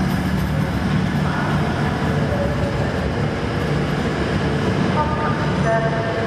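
Grand Central Class 180 'Adelante' diesel multiple unit running close past and pulling away: a steady diesel engine drone under the rumble of its wheels on the rails.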